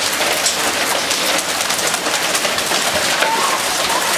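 Hail coming down hard: a dense, steady patter of many small hailstone hits.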